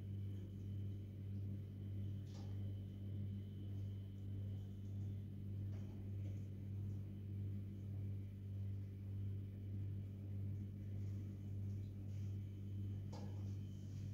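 A steady low hum that swells and fades gently about three times every two seconds, with a few faint clicks.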